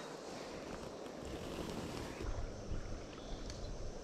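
Wind gusting against the microphone, low rumbling buffets over a steady outdoor hiss.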